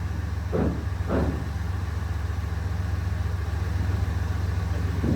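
A steady low engine hum, like a vehicle idling, with two short thuds in the first second and a half.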